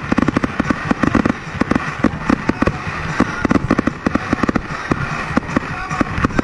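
Fireworks going off in quick succession: aerial shells launching and bursting, several bangs a second, overlapping without a break.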